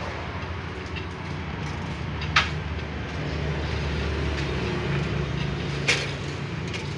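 Steady low machine hum, with two sharp metallic clicks a few seconds apart as a thin steel cylinder head gasket is handled against the bare engine block.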